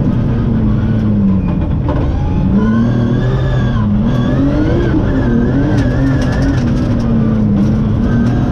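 BMW rally car's engine heard from inside the cabin, revving up and down through the stage with a constant low rumble underneath; about two seconds in the revs fall away, then climb again.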